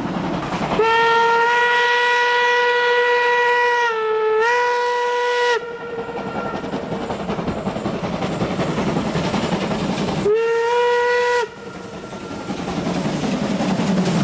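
A German class 50 steam locomotive's whistle sounds one long blast of about five seconds, dipping briefly in pitch near its end, then a second short blast about ten seconds in. Under the whistle the train is running along the track, growing louder toward the end as it comes close.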